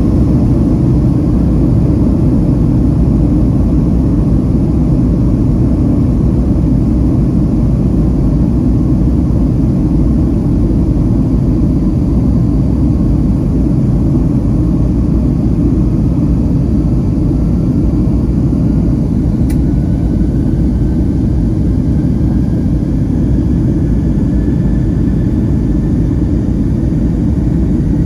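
Steady low rumble of a Boeing 757-200's Pratt & Whitney PW2037 turbofans and airframe heard inside the cabin while the jet taxis. A faint whine rises slowly through the second half, and there is one sharp click about two-thirds of the way in.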